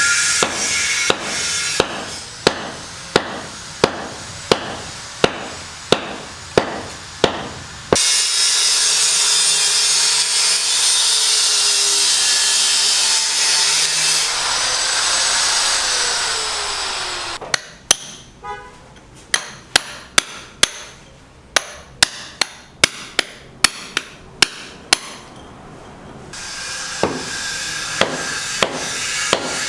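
Hammer blows struck in a steady, regular rhythm, broken in the middle by about nine seconds of a power tool running with its pitch slowly shifting. The knocks then resume, rapid and uneven.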